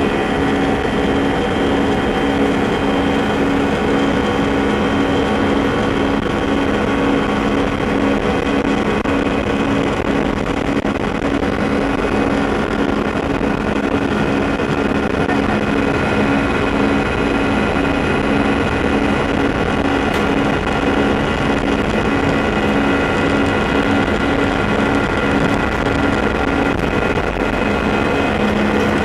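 Inside the cabin of an Airbus A319 rolling on the ground: a steady jet engine drone with several held tones, unchanging in pitch and loudness.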